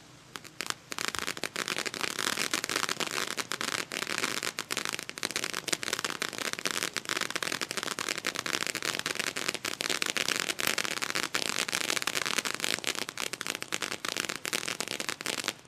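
Weco 'Hexentanz' firework fountain crackling: a dense, rapid crackle of many small crackling stars. It starts with a few scattered pops, thickens within about a second, and stops suddenly near the end.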